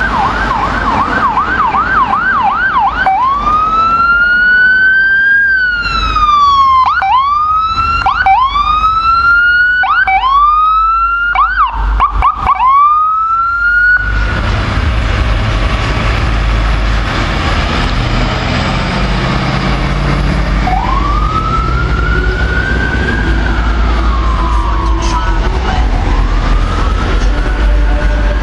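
Ambulance siren running a fast yelp, then switching to rising and falling wails broken by quick short whoops. About halfway through a loud low engine and road rumble suddenly comes up as the ambulance passes close, and the siren carries on over it in two slow wails.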